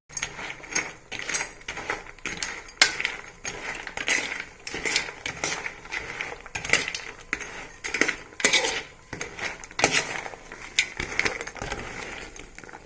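A spoon stirring fried raw-banana pieces through thick jaggery syrup, boiled to one-string consistency, in a pan, to coat them. It makes repeated, irregular scrapes and clinks against the pan.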